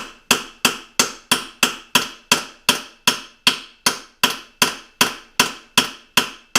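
Hammer tapping on the nut threaded onto the crankshaft end of a 1993 Yamaha 9.9 four-stroke outboard, a steady run of sharp metallic strikes about three a second, while the flywheel is pried up to knock it loose without a puller.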